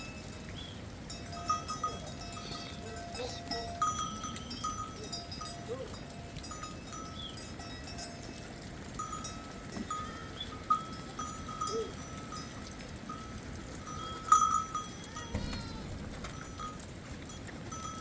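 Bells on a flock of sheep and goats clinking and ringing on and off as the animals move, with one louder clank about fourteen seconds in.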